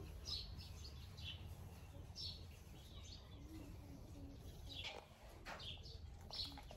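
Faint background birdsong: short, high chirps repeating every second or so over a low, steady background hum.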